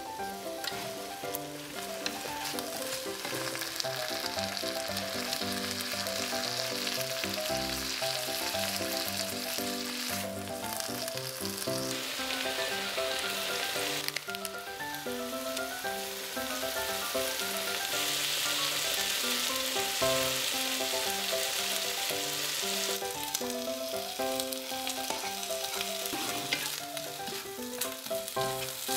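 Pork slices and tofu sizzling as they stir-fry in a nonstick frying pan, the sizzle swelling louder in two stretches, a few seconds in and again about two-thirds of the way through, with a spatula turning the food near the end. Background music with a simple melody plays underneath.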